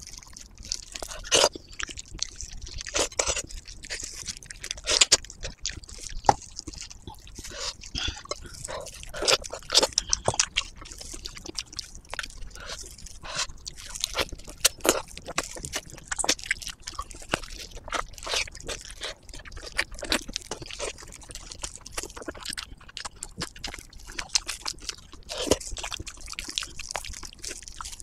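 Close-miked eating: wet, smacking chewing and biting of soft braised head meat, with gloved hands tearing meat apart, in many irregular short sharp smacks.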